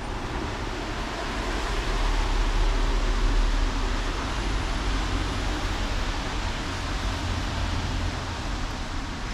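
Steady outdoor street noise: a constant hiss of traffic with a heavy low rumble and no distinct events.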